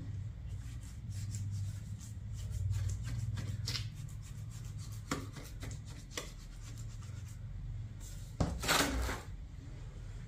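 Wet white-cement and marble-dust mix being poked and worked into a mould: light scraping and clicking, with a louder scrape of about a second near the end.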